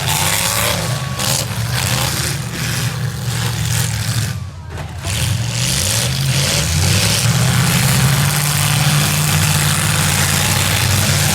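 V8 engines of demolition derby cars running and revving, their pitch rising and falling, with a brief dip in loudness about halfway through.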